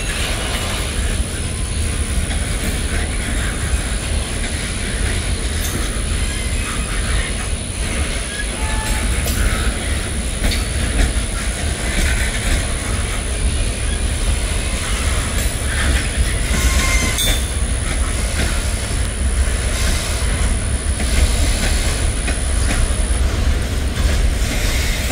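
Freight cars of a Norfolk Southern manifest train rolling past: a steady low rumble of wheels on rail with irregular clicks, and a few brief high-pitched wheel squeals.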